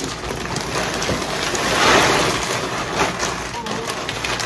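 Pine pellet cat litter pouring from its plastic bag into a cloth-lined basket: a continuous hiss of falling pellets with small clicks, heaviest about two seconds in.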